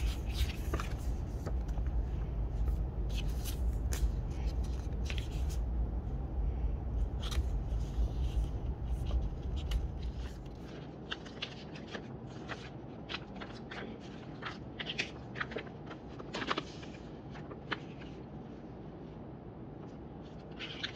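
Hands handling MacBook Pro packaging and accessories: scattered small clicks, taps and rustles. A low rumble sits under the first half and drops away about halfway through.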